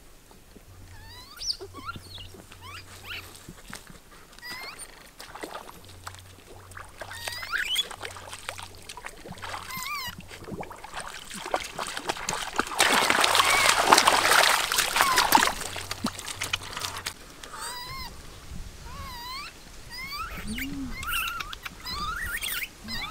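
Water splashing and sloshing for about three seconds near the middle as bare feet wade and hands grab in a shallow muddy pool. Short, high squeaky calls repeat throughout.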